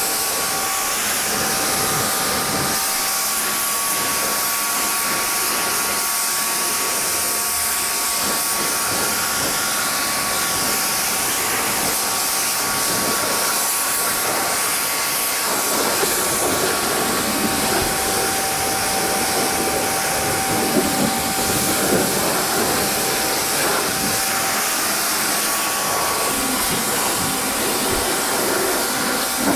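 Pressure washer jet spraying water onto a muddy tractor's wheel and steel frame: a steady hiss, with a faint steady whine underneath. About halfway through the spray turns rougher and a little louder.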